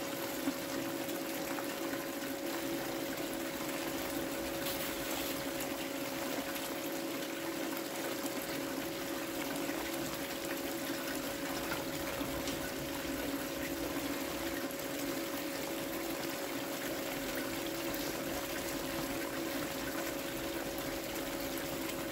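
Gold Cube concentrator running: pumped water flows steadily over its vortex mat with a constant low hum, as black sand is washed through it. A single small click sounds about half a second in.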